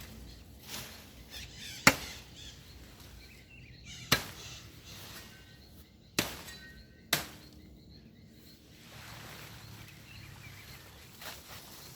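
Four sharp chopping blows of a blade cutting into tree branches, roughly two seconds apart with the last two closer together. Some blows carry a brief metallic ring.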